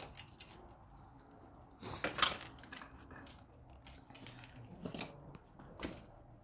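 Footsteps crunching and clinking over broken plaster, tile and wood debris on the floor: a few irregular steps, the loudest about two seconds in.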